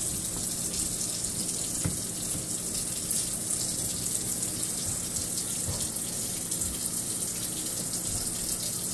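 Kitchen sink faucet running, a steady stream of water splashing into the sink.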